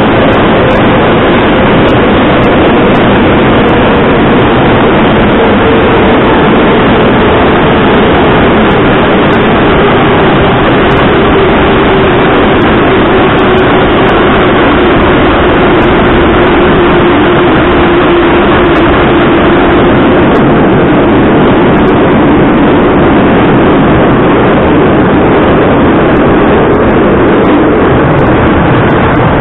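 Metro train running between stations, heard from inside the carriage: a loud, steady rumble and rush of wheels on rails in a tunnel, with a faint motor whine sliding slowly down in pitch and then levelling off.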